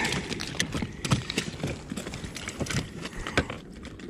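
Irregular knocks and clatter of gear being handled on a plastic fishing kayak, several sharp taps a second.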